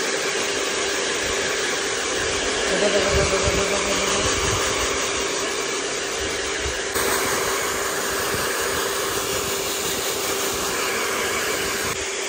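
Handheld electric hair dryer blowing steadily, drying a freshly bathed dog's wet coat: a constant rush of air over a steady motor hum.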